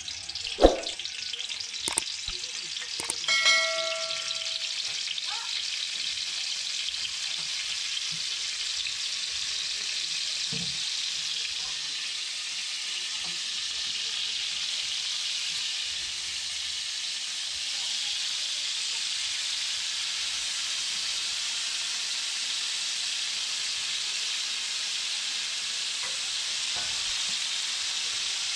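Tarantulas frying in oil in a steel wok, a steady sizzle. Near the start there are a few sharp knocks and a short metallic ring.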